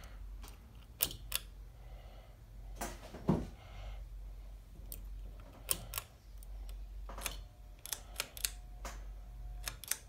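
Sharp clicks from a Hampton Bay Minuet II ceiling fan's pull-chain switch, more than a dozen scattered at irregular gaps, over a steady low hum. A faint steady tone joins about seven seconds in.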